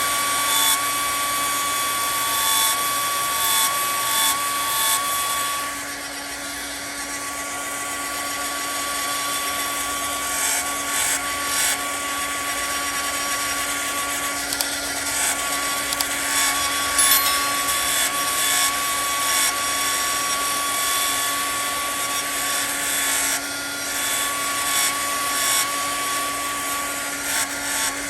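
Handheld hair dryer running steadily, a high whine over the rush of air, blowing hot air to heat-bond a screen repair patch onto window screen mesh. It dips in level about six seconds in, then builds back up.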